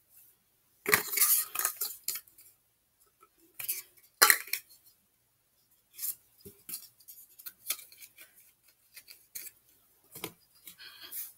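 Plastic slime-making containers and utensils being handled and set down: irregular clatters and clicks, loudest about a second in and again about four seconds in.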